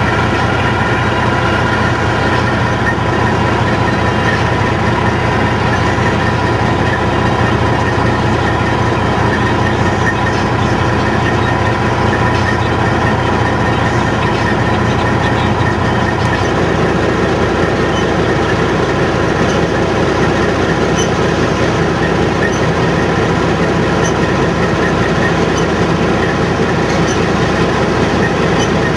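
John Deere combine harvesting soybeans: a loud, steady drone of engine and threshing machinery, with several steady tones over a hiss from the header and crop. The mix of lower tones shifts a little over halfway through.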